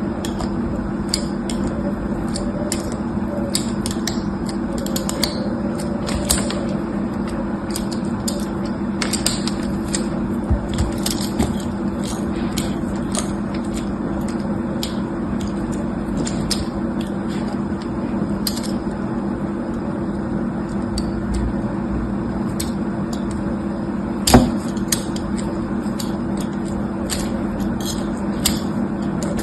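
Small scattered clicks and crackles of hand-handling of objects over a steady low hum, with one louder knock about 24 seconds in.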